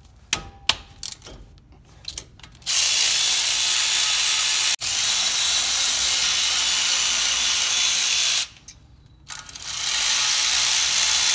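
Cordless electric ratchet with a 14 mm socket spinning out brake caliper mounting bolts: a few light clicks as the socket goes on, then a long steady whir with a momentary break near the middle, a pause, and a second short run near the end for the other bolt.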